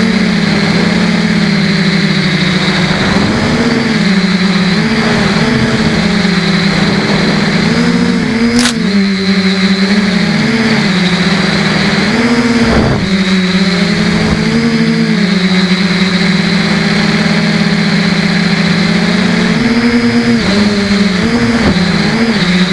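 Quadcopter's brushless Emax motors and propellers buzzing in flight, the pitch rising and falling as the throttle changes. There is a single sharp click about nine seconds in.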